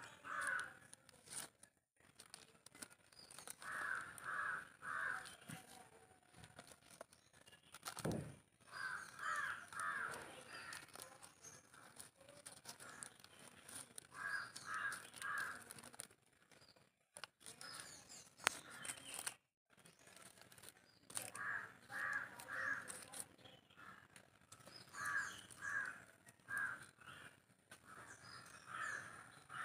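Crows cawing in short runs of three or four caws every few seconds, over faint crinkling of a plastic strip being wound tightly around a stem graft.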